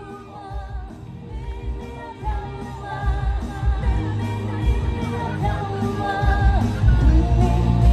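A man singing live into a microphone over pop accompaniment with a steady beat. It starts softer and gets louder from about three seconds in.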